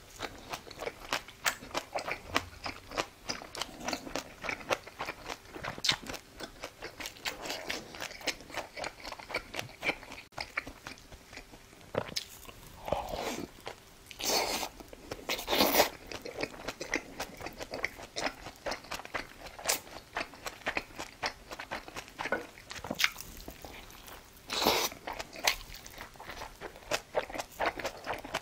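Close-miked eating: a person biting and chewing crunchy food, with wet crackles and clicks of the mouth and a few louder crunches about halfway through and near the end.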